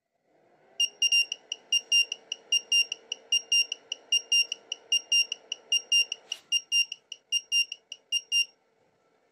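Pulsar battery charger's buzzer beeping rapidly, about four short high beeps a second. The beeps signal the end of a 10 A discharge of a lithium-ion cell that has reached its cut-off voltage. Underneath runs a fainter steady whir that stops with a click about six seconds in.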